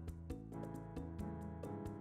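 Background music with a steady beat: sustained pitched notes over a bass line, with regular percussive strokes.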